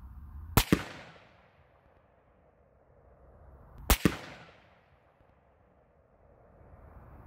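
Two rifle shots from an AR-15 firing .223 Remington handloads, about three seconds apart. Each is a sharp double crack with a short fading tail.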